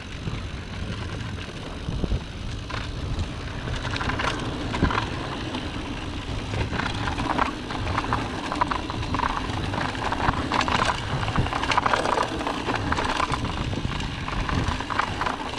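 Mountain bike riding down a dirt forest trail: tyres rolling over dirt and roots, with many short knocks and rattles of the bike over bumps, and wind rumbling on the camera microphone. It gets busier and louder from about four seconds in.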